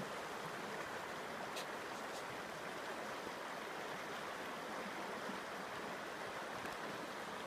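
Shallow, rocky mountain creek running steadily over stones and through riffles, an even rushing of water.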